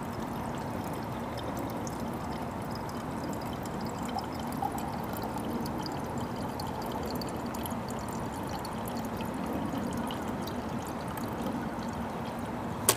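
Filtered water running in a steady stream from the spigot of a Berkey Light gravity water filter into a drinking glass. A single sharp knock comes near the end.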